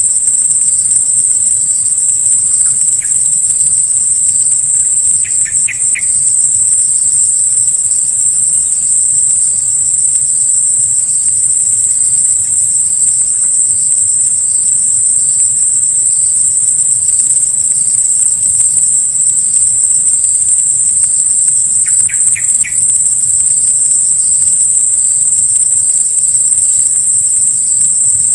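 Loud, steady high-pitched insect droning, like crickets or cicadas, with a faint pulsing layer beneath it. Short bursts of small bird chirps come twice, about five seconds in and again about twenty-two seconds in.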